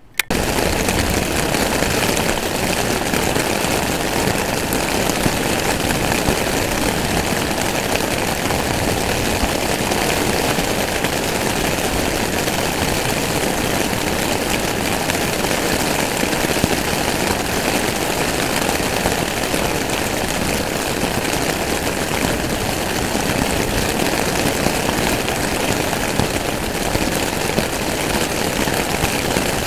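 Heavy rain pouring down in a storm: a loud, steady, dense hiss.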